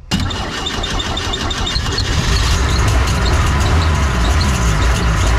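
Boat's inboard engine with a Rochester carburettor catching abruptly and running, growing louder over the first couple of seconds and then holding steady, with a light repeating tick over the engine noise. It won't settle to a proper idle: the carburettor's idle circuit doesn't seem to be working.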